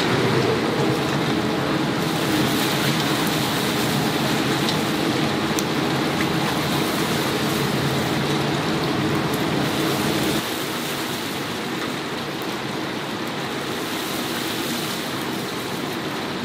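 Chicken deep-frying in hot oil in a cast-iron cauldron, a steady dense sizzle. The sizzle drops a little in level about ten seconds in.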